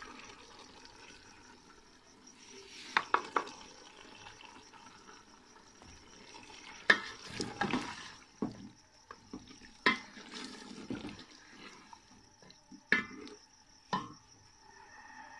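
Long-handled ladle stirring beef and potatoes in ghee inside a metal cooking pot (degchi), knocking against the pot's side at irregular intervals with a few sharp clacks, over a faint hiss of frying.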